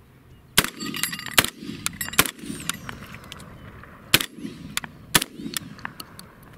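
Catamount Fury II 12-gauge semi-automatic shotgun firing birdshot: five shots, three in quick succession about a second apart, then two more after a pause, each shot echoing briefly.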